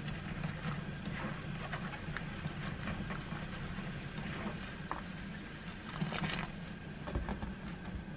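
Wooden spoon scraping and pressing soybean paste through a stainless steel mesh sieve into broth: soft repeated scrapes and clicks, with a longer, louder scrape about six seconds in. A steady low hum runs underneath.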